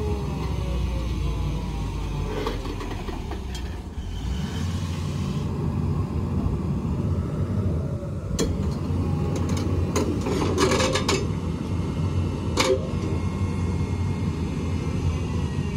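Tracked excavator's diesel engine running steadily as it works its hydraulics to lower a Jeep slung from its bucket, with scattered sharp metal clanks and a quick cluster of them about ten to eleven seconds in.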